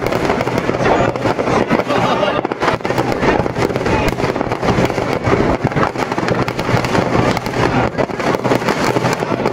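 Firecrackers packed inside a burning Ravana effigy going off in a rapid, continuous crackle of pops and bangs.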